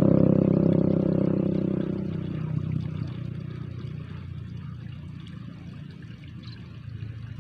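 Electronic background music with a steady beat, fading out over the first two or three seconds, leaving a faint trickle of water.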